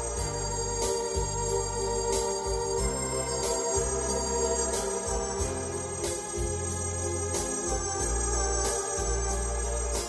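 Hammond X66 organ playing a melody over sustained chords. A bass line moves underneath, and a steady drum beat strikes about every two-thirds of a second.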